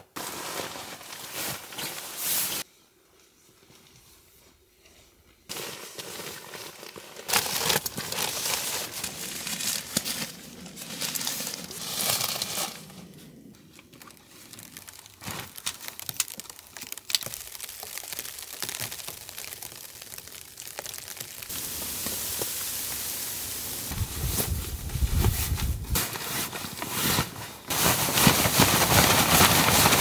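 Nylon tent and tarp fabric rustling and crinkling as it is handled and packed away, in several stretches that start and stop abruptly.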